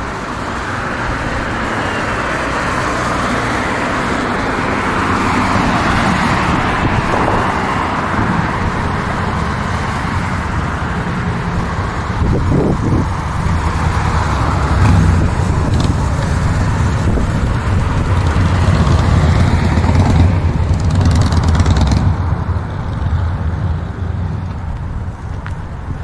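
Road traffic noise: vehicles running past, with a heavier low rumble swelling through the middle and easing off near the end.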